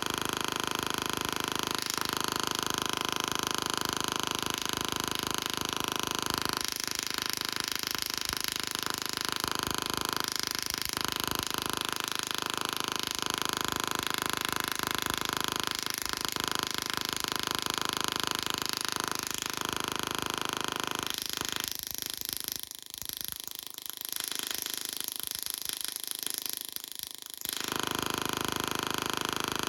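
Tesla coil discharging with a steady electric buzz. Near the end the low part of the buzz drops away for about five seconds, leaving a thin high hiss, then comes back.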